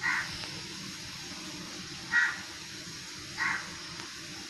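A crow cawing three times, short harsh caws, over the steady sizzle of an omelette frying in oil in a pan.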